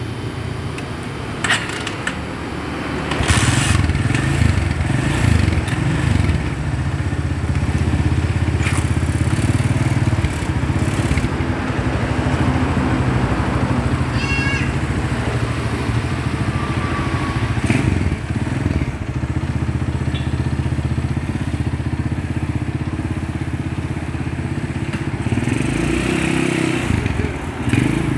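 Honda motorcycle's single-cylinder engine running, picking up about three seconds in and then running steadily, as it is test-run after its ignition pickup was reworked; near the end it pulls away.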